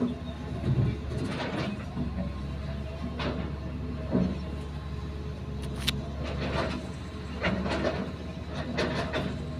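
Hitachi hydraulic excavator working a soil bank: its diesel engine runs with a steady low drone, over repeated clanks and scrapes from the bucket digging and soil falling down the face.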